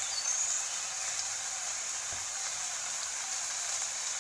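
Steady rain falling, an even hiss with no change in level. A short, high rising chirp sounds about half a second in.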